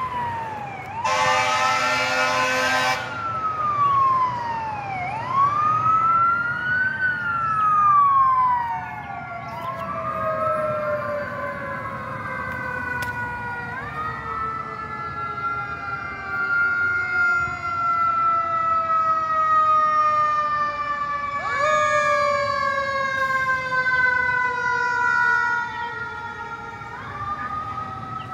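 Fire engine and ladder truck sirens overlapping. At first one wails up and down every few seconds; later the sirens climb quickly and then slowly fall away. A horn blast lasting about two seconds sounds about a second in.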